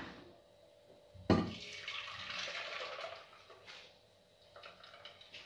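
Thick blended banana mixture pouring from a blender jug into a stainless-steel saucepan, a steady pour lasting about two seconds, starting just after a knock about a second in.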